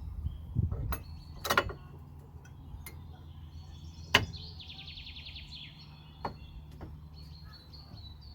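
Scattered sharp clicks and knocks of tools and brake parts being handled, the loudest about four seconds in, over a steady low hum. A bird gives a quick descending trill just after the loudest knock.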